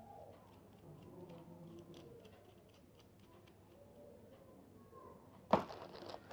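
Quiet handling of action-camera accessories and their packaging, then a sharp knock followed by rustling about five and a half seconds in, as the parts are handled and set down.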